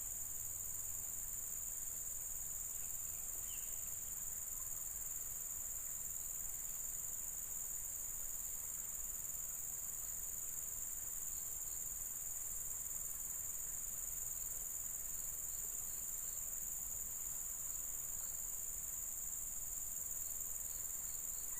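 Steady chorus of insects, a continuous high-pitched shrill buzz that holds an even level without pause.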